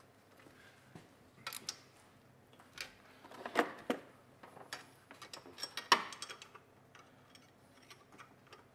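Ratchet wrench clicking in short runs, with metal clinks of tool on bolt, as the turbocharger's mounting bolts are tightened. The sharpest click comes about six seconds in.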